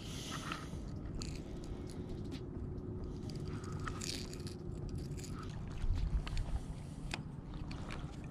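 Small clicks and scrapes of fingers fastening a fishing lure onto the metal snap at the end of the line, over a steady low rumble, with a dull thump about six seconds in.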